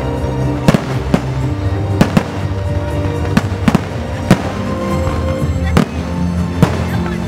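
Fireworks bursting overhead: about nine sharp bangs at irregular intervals, over music playing.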